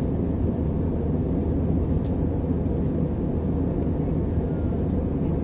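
Steady cabin noise inside an Airbus A319 in flight: the low drone of the jet engines mixed with the rush of air past the fuselage, even and unchanging.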